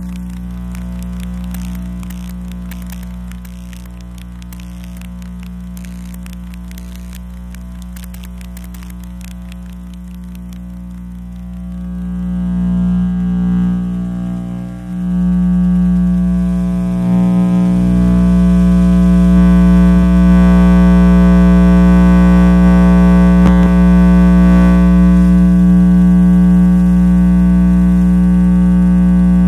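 Radio-frequency interference from electrical and electronic devices, picked up by an RFI probe: a steady electrical buzz with rapid crackling ticks over the first ten seconds. It swells about twelve seconds in, jumps louder at about fifteen seconds, and then holds as a dense, even buzz.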